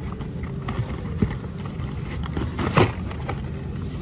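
Blister-packed Hot Wheels cars clicking and rustling as they are handled and shuffled through a cardboard case, with a louder rustle about three quarters of the way through, over a steady low hum.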